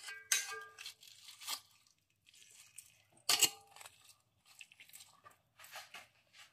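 Metal fork clinking and scraping against a wire cooking rack as chicken thighs are turned over: a run of irregular clicks and scrapes, some ringing briefly, with the loudest click about three seconds in.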